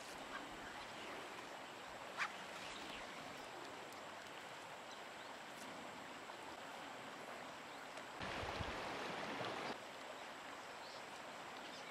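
Steady rush of a flowing river. There is a single sharp click about two seconds in, and a louder rush of noise lasting about a second and a half, about eight seconds in.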